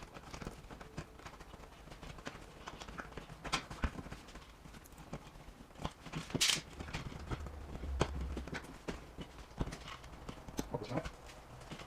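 Irregular clicks, taps and knocks of hands working wiring and a smart light switch into an electrical wall box, with a louder scrape about six and a half seconds in.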